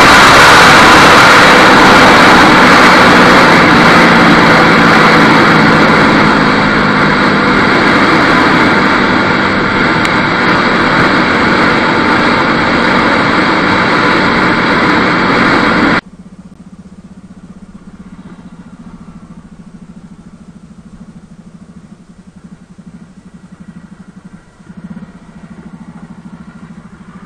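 Heavy wind rushing over the action camera's microphone at riding speed, with the Bajaj Pulsar RS200's engine underneath. About two-thirds of the way through it cuts off suddenly to the quieter, steady note of the single-cylinder engine idling through its modified exhaust.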